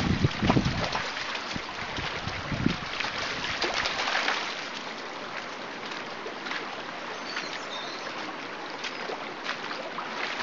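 Shallow stream running over stones, with wind buffeting the microphone for about the first second.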